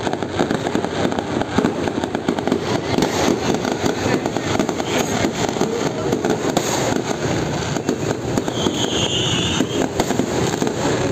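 Fireworks crackling and popping densely and without a break, many small bursts overlapping, with a brief high whistle about eight and a half seconds in.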